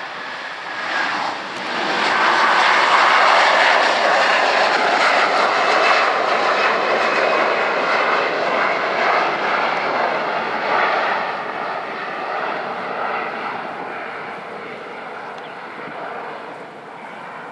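Jet noise from the two Rolls-Royce Trent 772B turbofans of an Airbus A330-300 at takeoff power as it climbs away: a loud rushing roar that swells over the first two seconds, with a faint whine sliding down in pitch as it passes, then slowly fades as the jet moves off.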